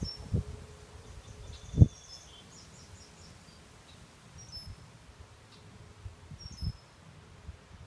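Small birds chirping in the background, short high calls scattered throughout. A few low thumps on the microphone, the loudest about two seconds in, and a faint steady hum that stops around the same time.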